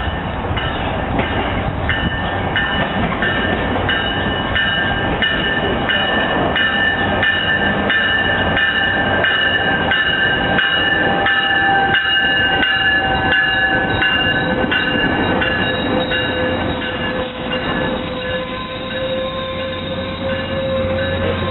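Tri-Rail commuter train with Hyundai Rotom coaches pulling into a station: a dense rumble with many wheel clicks, and brakes squealing in several high steady tones. Near the end it eases off, the clicks thin out, and a steady low hum with a middle tone remains as the train comes to a stop.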